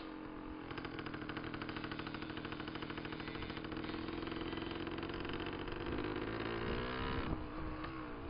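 Dirt bike engine running while riding along a track at a steady engine speed. Near the end its pitch drops and then climbs again.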